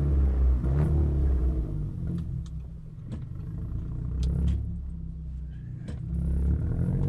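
Audi A3 2.0 TFSI's turbocharged four-cylinder, with an aftermarket downpipe and catback exhaust, running at low revs with a steady deep drone. A few short sharp clicks are scattered through. The drone eases off in the middle, then builds again as the engine pulls harder near the end.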